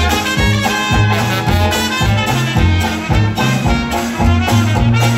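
Traditional New Orleans jazz band playing live: trumpet and trombone over a walking sousaphone bass line, with washboard and guitars keeping a steady swing beat.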